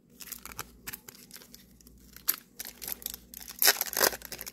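A foil Yu-Gi-Oh booster pack wrapper crinkling and tearing as it is ripped open. The crackles grow louder, with the loudest bursts late on.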